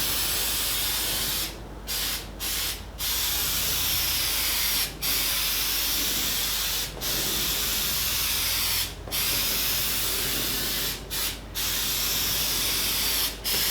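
Aerosol can of Dupli-Color Bed Armor bed-liner spray hissing as the coating is sprayed on, in long bursts of a few seconds each with about nine short breaks as the nozzle is released and pressed again.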